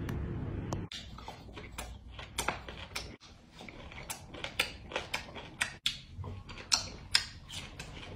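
Close-miked chewing of crunchy food: crisp, irregular crunches, about two or three a second, after a low steady noise in the first second.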